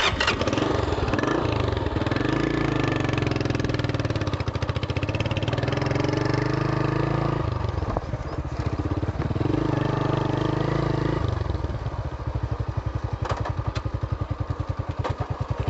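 Honda CB125 motorcycle engine catching suddenly and running, its speed rising and falling through the middle, then settling to a slower run near the end, where the individual firing beats can be heard.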